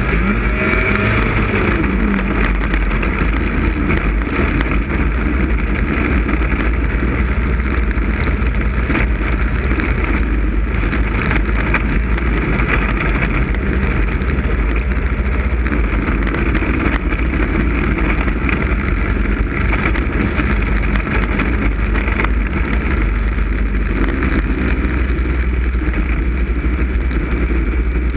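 Snowmobile engine running steadily at speed, heard from a camera mounted on the sled, under a constant low rumble of wind and vibration on the microphone.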